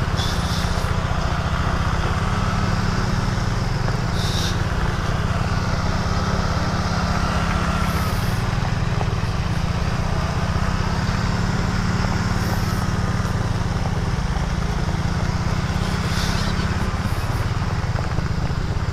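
Yamaha Mio scooter's small single-cylinder engine running at a steady, even pace while riding along.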